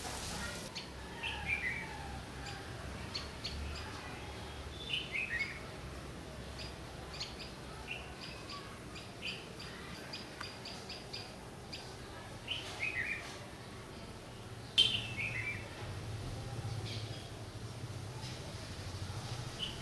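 Small garden songbirds calling: short descending phrases of three or four notes recur several times, with a run of sharp chip notes at about two a second in the middle. A sharp click about fifteen seconds in stands out as the loudest sound.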